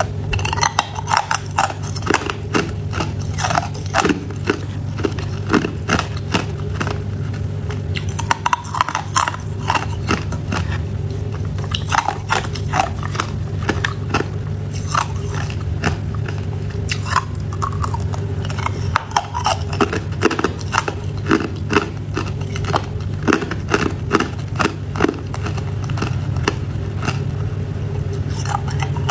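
Hard ice being bitten and chewed close to the microphone: a long run of sharp, irregular cracks and crunches as the ice breaks between the teeth.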